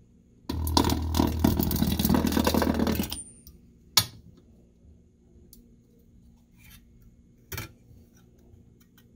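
An AC resistance welder rolls a weld across stainless steel wire mesh through a copper roll-spot wheel on a pistol-grip hand piece. It gives a steady low hum with dense crackling for about two and a half seconds. A sharp click follows about a second later, and a shorter knock comes near the end.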